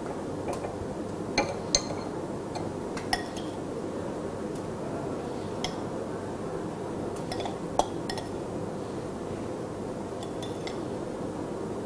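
Metal spoon clinking against a small glass bowl as salad dressing is spooned into it: scattered light clinks, the sharpest about a second and a half in and about eight seconds in, over a steady low background noise.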